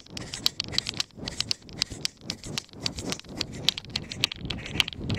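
Quick, irregular running footsteps and the knocking and rustle of a handheld camera jostled in the runner's hand during a sprint, over a low rumble of wind and movement on the microphone.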